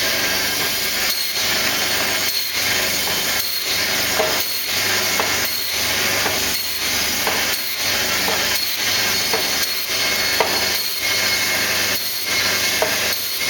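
A stainless-steel meat band saw running with a steady motor hum, its blade rasping through a frozen fish block as it is sliced. The cutting noise swells and dips about once a second, one dip per slice as the block is pushed back through.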